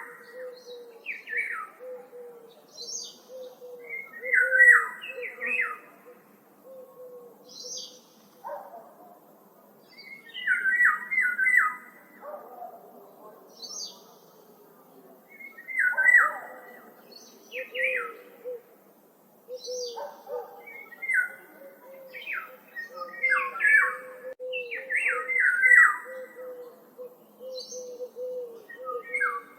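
Several songbirds singing in woodland, short chirping phrases repeating every couple of seconds, with higher thin notes in between and a low note repeating steadily underneath.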